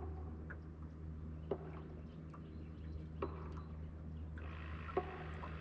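A steady low hum with three sharp clicks spaced a second and a half or more apart.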